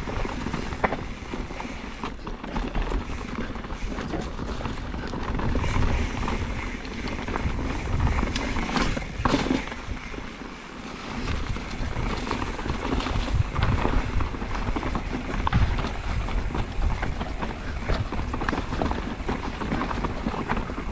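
Mountain bike riding fast down a rocky trail: tyres and frame clattering over rocks in a dense run of knocks and rattles over a low rumble, easing briefly about ten seconds in.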